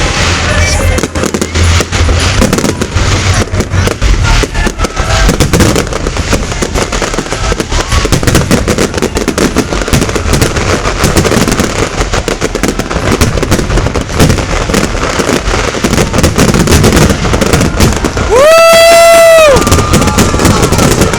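A fireworks display: dense, rapid crackling and popping bursts throughout. Near the end a loud whistle holds a steady pitch for about a second and a half.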